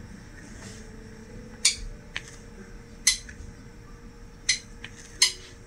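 Diamond painting drill pen tapping as it picks up drills from a plastic tray and presses them onto the canvas: five sharp little clicks at uneven intervals.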